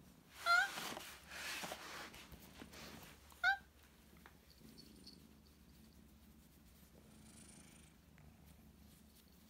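Old tortoiseshell cat giving two short meows, about half a second and three and a half seconds in, over a rustle of handling, then purring softly.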